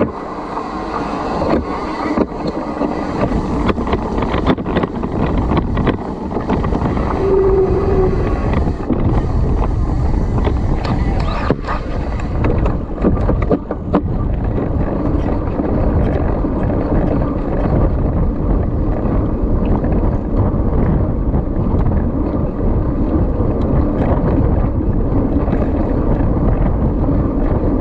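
Mountain bike riding fast down a dirt trail: a steady rumble of wind on the microphone and tyres on the ground, with frequent knocks and rattles from the bike over rough terrain.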